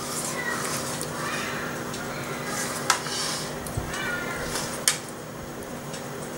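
Metal spoon scraping and spreading soft labneh over dough in a metal springform pan, with two sharp clinks of spoon against pan about three and five seconds in. A short high squeal sounds a little after four seconds, over a steady low hum.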